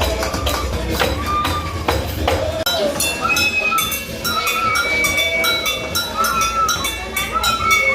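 Voices singing, with a fast, even percussion beat of sharp strokes joining in about three seconds in.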